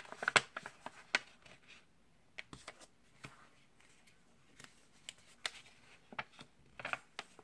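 Sheet of copy paper being folded and creased by hand: short crisp crackles and taps, closely packed in the first second, then scattered and sparse.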